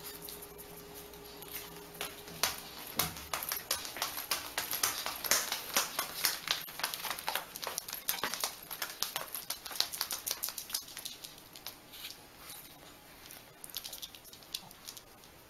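A small dog's booties tapping and clopping on a wooden floor as it high-steps about in them. The taps are quick and irregular, thickest through the middle.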